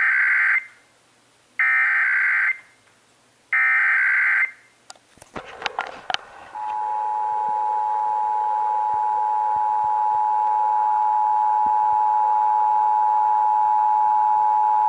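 Emergency Alert System test signal: three short bursts of the SAME digital header, each about a second long and under two seconds apart. A few clicks and crackles follow, then the EAS two-tone attention signal starts about six and a half seconds in and holds steady.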